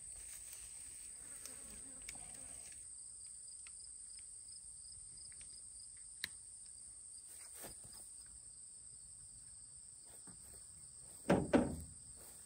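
Crickets trilling steadily and high-pitched, with a second, pulsing insect call joining about three seconds in. Near the end come two brief, louder rustling thumps.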